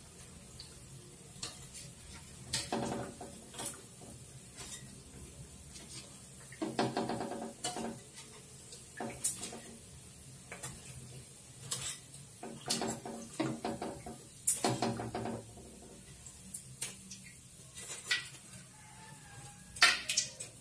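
Metal tongs and a wire skimmer clinking and scraping against a metal wok while fried rice-dough balls are turned and lifted out of the frying oil. Sharp single clinks come every few seconds, with longer scrapes a few seconds in, around the middle, and again about two-thirds through.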